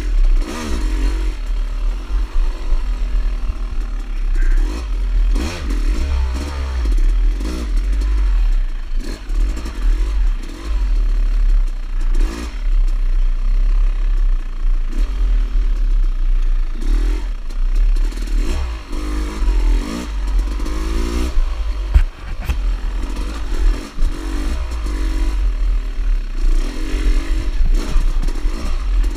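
Dirt bike engine being ridden, its revs rising and falling over and over, under heavy wind rumble on the microphone. There are occasional sharp knocks and clatter, the clearest about twelve seconds and twenty-two seconds in.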